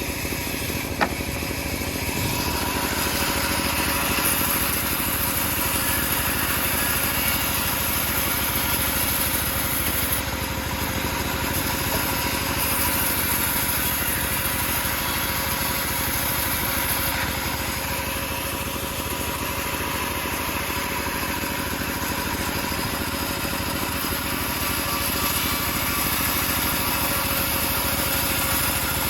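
Homemade bandsaw mill running steadily while sawing teak, a constant machine hum with a single sharp click about a second in.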